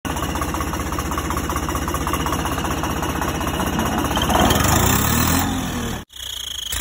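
Tractor engine running with a fast, even chug, revving up and back down around four to five seconds in; the sound breaks off abruptly about six seconds in.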